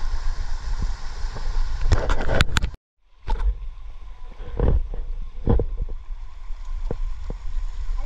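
Wind buffeting an action camera's microphone over the rush of a shallow rocky stream, with several sharp knocks from the camera being handled and steps on rock. The sound drops out briefly about three seconds in.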